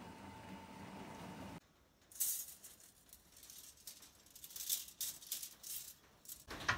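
Coil of thin steel wire rattling and jingling as it is handled, in irregular bursts of clicks from about two seconds in. Before that, a steady hiss with a faint thin tone that cuts off abruptly.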